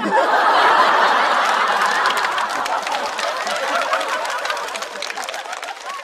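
Studio audience laughing and clapping in response to a stand-up punchline, loudest in the first second or two and then gradually dying down.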